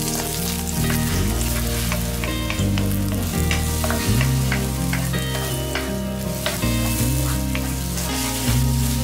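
Beaten eggs sizzling in a hot nonstick wok while a wooden spatula stirs and scrapes them into scrambled curds, with many small scraping ticks. Music plays underneath.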